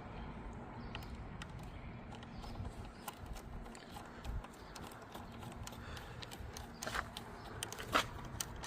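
Small metal clicks and taps from a negative battery cable's terminal and its small branch lead being handled and fitted onto the battery post, with two louder clacks about seven and eight seconds in, over a faint steady hum.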